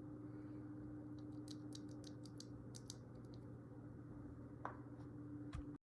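Typing on a Keychron Q2 aluminium mechanical keyboard with Gateron Pro Red linear switches: a quick run of faint keystrokes, then a few single ones. A steady low hum runs underneath.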